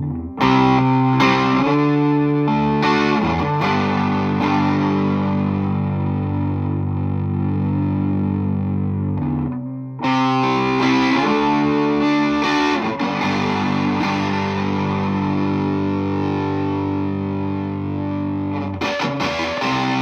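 Electric guitar played through a Flum Dilly distortion and boost pedal with thick distortion: a few quick chord changes, then a long held chord. The phrase repeats about ten seconds in, with more chords struck near the end.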